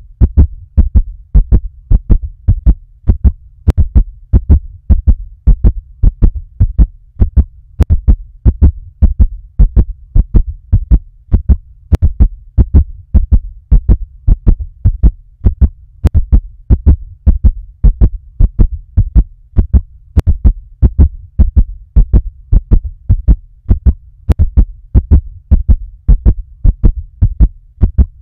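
Heartbeat sound: low double thumps, th-thump, repeating steadily and fast. A faint click recurs about every four seconds.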